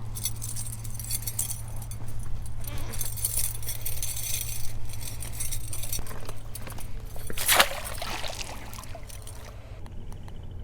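Clinking and jangling of handled gear: a run of small rattles and clicks, with one louder clatter about seven and a half seconds in, over a steady low hum.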